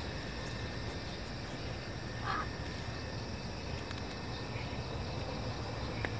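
Rural roadside ambience: a steady low rumble with faint insect trilling, and one short bird call about two seconds in.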